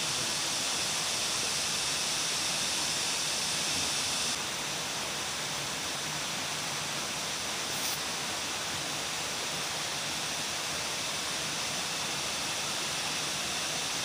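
Steady outdoor hiss, heaviest in the high range, that drops slightly about four seconds in, with one brief click near the eight-second mark.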